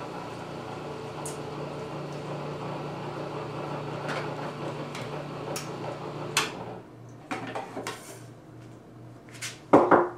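Knocks and clinks of the juicer's parts and containers being handled over a low steady motor hum. The hum stops about seven seconds in, and a last pair of loud knocks comes near the end.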